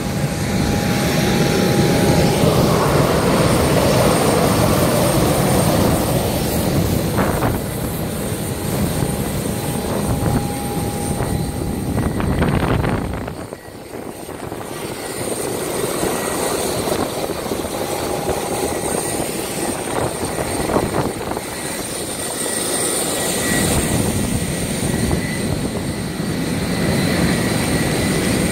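Boeing 737-800 jet engine and airflow noise heard from inside the passenger cabin: a loud, steady rumble with a faint whine. About halfway through the rumble falls away sharply, then builds back up over several seconds.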